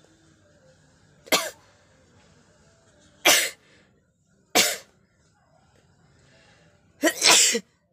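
A person sneezing four times, a second or two apart, each a short loud burst; the last one is longer, with two peaks.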